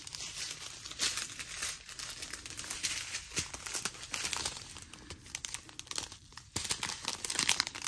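Strips of small plastic zip bags holding diamond painting drills crinkling and rustling as they are handled, an irregular run of crackles.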